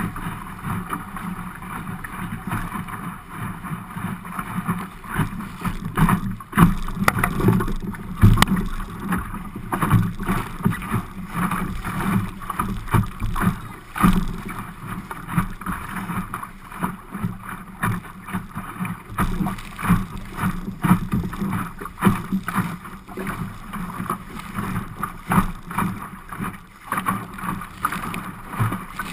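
Water slapping and splashing against the hull of an Optimist dinghy sailing through chop, in irregular knocks, with wind buffeting the microphone.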